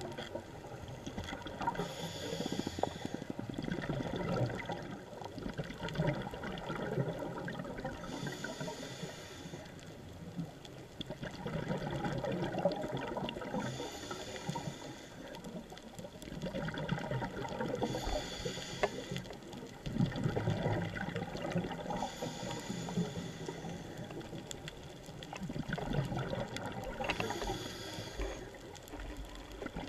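A scuba diver breathing through a regulator underwater: about six hissing inhalations a second or so long, spaced four to six seconds apart, each followed by a stretch of bubbling exhaust.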